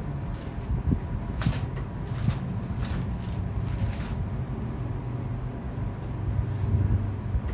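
About five sharp clicks in the first four seconds over a steady low rumble.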